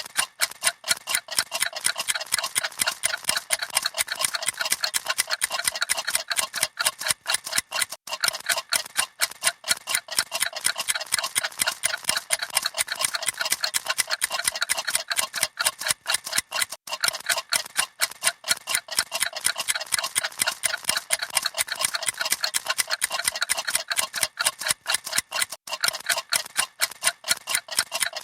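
Many mechanical clocks ticking at once, their rapid, overlapping ticks forming a dense, continuous clatter.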